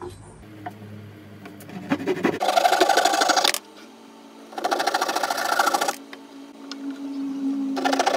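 Fine-toothed hand saw cutting through a small piece of wood, trimming it flush against a table edge, in three runs of quick back-and-forth strokes with short pauses between; the last run starts near the end.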